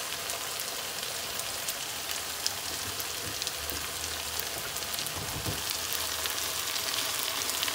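Stuffed brinjal curry sizzling in oil in a pan on the stove: a steady sizzle with scattered small pops.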